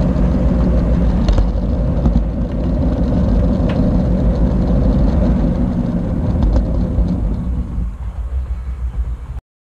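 HO-scale model train running along its track, heard from a camera riding on the train: a loud rumble with a steady motor hum and scattered sharp clicks. It thins out near the end and then cuts off suddenly.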